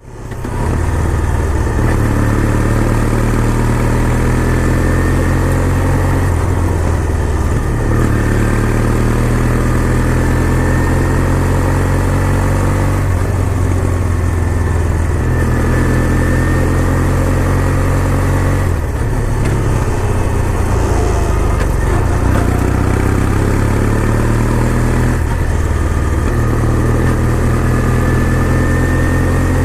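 Kawasaki W800's air-cooled parallel-twin engine running steadily under way. Its note climbs and then drops back about every six seconds.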